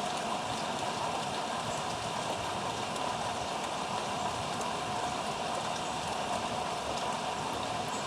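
Steady outdoor background noise: an even hiss with a few faint, short high ticks.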